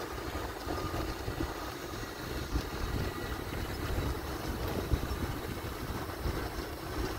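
Wind buffeting the microphone: an uneven low rumble under a steady hiss.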